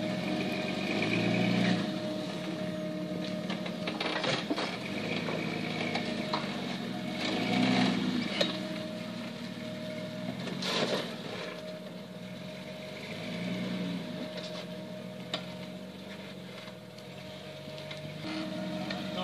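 Jeep Cherokee XJ engine running at low crawling revs, rising and falling in swells as the truck climbs over boulders, with a few sharp knocks along the way.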